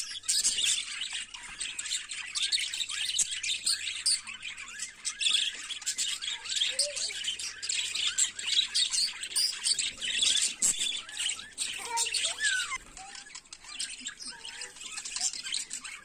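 A flock of budgerigars chattering and warbling: many overlapping rapid chirps and squeaks with no break, and now and then a lower sliding call.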